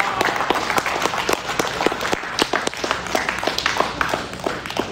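Applause: many people clapping irregularly, tapering off near the end.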